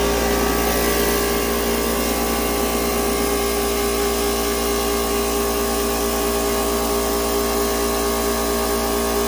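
Small 10-gallon Harbor Freight air compressor running steadily, a loud, even motor-and-pump drone that reads about 96 dB on a sound level meter.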